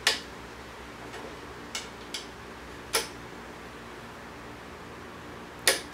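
A click-type torque wrench set to 120 inch-pounds is tightening wooden-propeller hub bolts. It gives a few short sharp clicks, the clearest about three seconds in and near the end, each click the sign that a bolt has reached its set torque.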